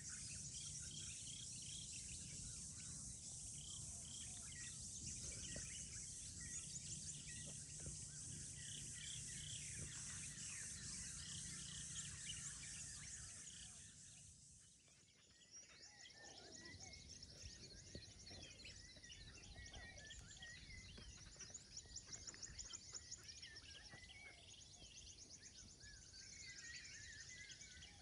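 Faint birds chirping and insects trilling steadily in the forest along the water, with a brief dip in the sound about halfway through.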